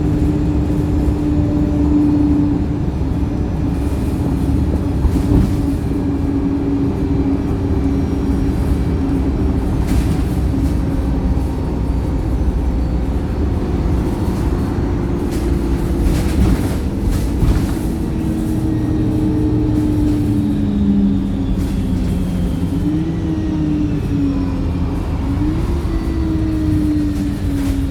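Wright StreetLite single-deck bus running with passengers aboard: its diesel engine drones steadily over road rumble, its tone sinking slowly and then rising and falling twice near the end as the bus changes speed. The uploader calls the engine tired.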